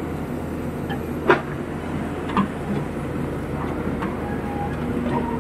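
Hyundai crawler excavator's diesel engine running steadily while the machine digs, with a sharp knock about a second in and a smaller one about a second later from the bucket working the soil.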